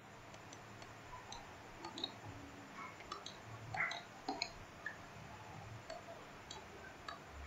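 Faint, irregular computer mouse clicks and small ticks, a dozen or so scattered through the pause, as the curve tool is picked in the CAD program.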